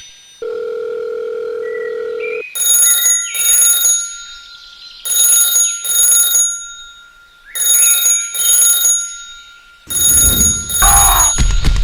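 A steady electronic tone for about two seconds, then a telephone ringing in a double-ring pattern, four pairs of rings about two and a half seconds apart. A loud low rumble with clicks comes in near the end.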